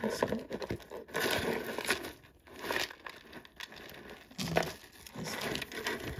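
Plastic bag crinkling in several bursts as it is handled and rummaged through.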